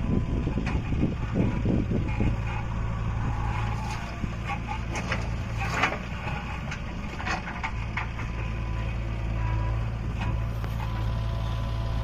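Diesel engine of a JCB 3DX backhoe loader running steadily while the backhoe digs and lifts a bucket of soil, with scattered short knocks and clanks in the middle.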